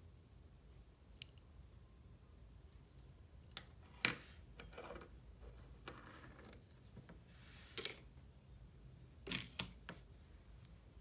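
Packaging and small items being handled: scattered sharp clicks, with the loudest about four seconds in, and short bursts of crinkly rustling in between, ending with a couple of quick clicks near the end.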